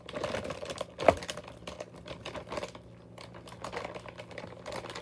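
Rapid, irregular crackling clicks close to the microphone from candy being handled and eaten, with one sharper click about a second in.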